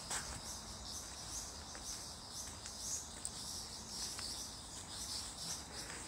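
A chorus of night insects chirping, a high-pitched pulsing about twice a second, with a few faint clicks.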